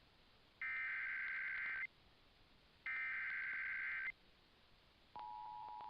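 Emergency Alert System broadcast: two bursts of SAME header data tones, each a harsh buzzing screech about a second and a quarter long with a short gap between, then about five seconds in the steady two-tone EAS attention signal starts, with scattered clicks.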